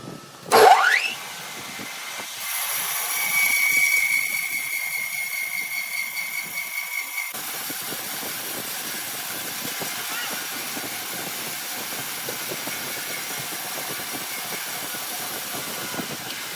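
Sawmill saw and machinery running. A loud, quickly rising whine comes about half a second in, then a steady high whine for about five seconds that stops suddenly, then even machine noise to the end.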